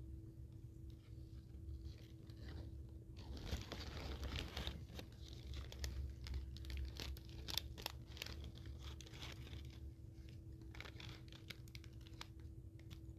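Paper fast-food wrapper crinkling and tearing as it is handled and opened: a rustle about three seconds in, then a run of sharp crinkles.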